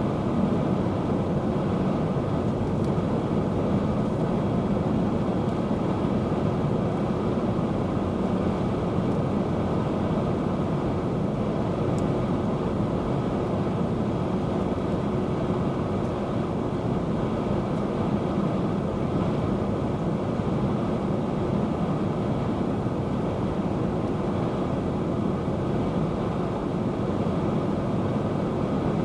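Steady, unbroken roar of storm wind, with a low steady hum running underneath.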